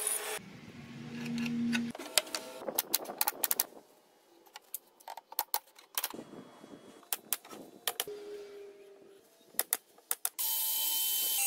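Pneumatic brad nailer firing brads into wooden blocks: clusters of sharp clicks in quick succession, a second or so apart. A band saw cutting plywood is heard at the very start and starts running again near the end.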